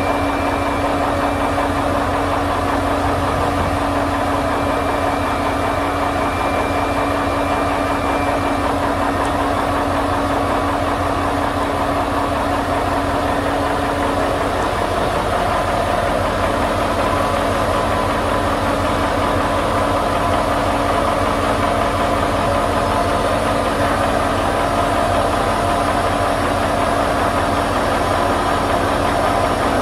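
An engine running steadily at idle with an even low pulse and a steady hum while the Altec bucket boom is lowered to its stowed position.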